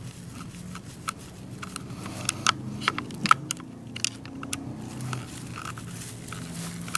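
A hand tool turning out a small screw that holds an electric dirt bike's throttle box: irregular metal clicks and scrapes as the screw is loosened.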